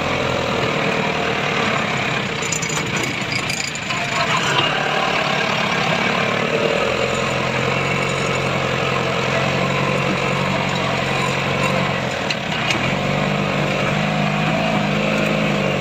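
Off-road Jeep's engine running steadily as it drives along a rough dirt track, heard from inside the cabin; the revs rise a little near the end.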